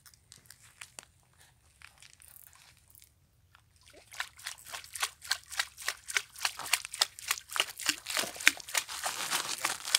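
A hooked fish thrashing at the surface on a pole-and-line rig, throwing up a quick run of splashes that starts about four seconds in and grows louder.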